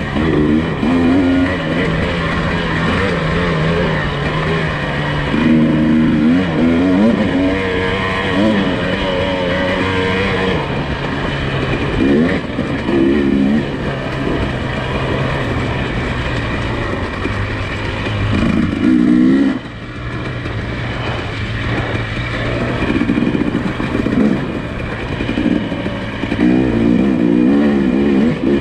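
Nissan Pathfinder SUV engine working slowly over a rough trail, revving up and easing off again every few seconds.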